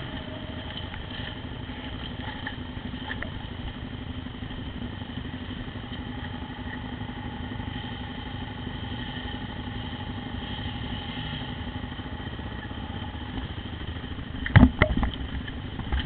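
Motorcycle engine running steadily at low revs on a dirt trail. About fourteen and a half seconds in come several sharp, loud knocks.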